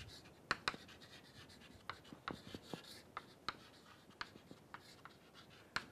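Chalk writing on a chalkboard, faint: a string of irregular sharp taps as the chalk meets the board, with light scratching along the strokes.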